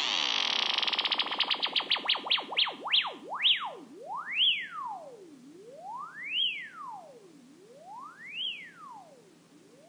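Electronic sound effect played from a launchpad: a single pure tone sweeping up and down in pitch, very fast at first and slowing steadily until each rise and fall takes about two seconds.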